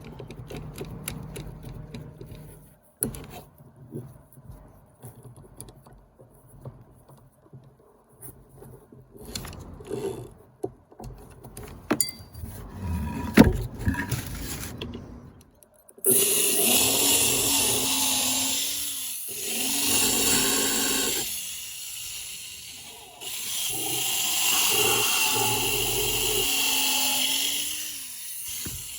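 Handling clicks and knocks, then a restored vintage Craftsman 1/4-inch electric drill (model 315.7701) running in three bursts, its motor whine dropping in pitch as it winds down after each.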